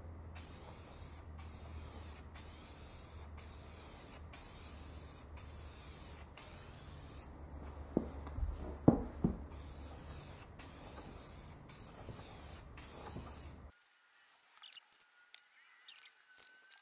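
Aerosol spray paint can spraying in a series of hisses, about one a second with short gaps between them. Partway through there is a pause with a few knocks, then the spraying resumes and stops a few seconds before the end.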